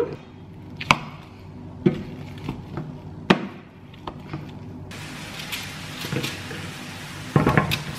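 A metal utensil knocking several times against a stainless steel pot while mashed potatoes are stirred. A steady hiss comes in about halfway, and there is a clatter near the end.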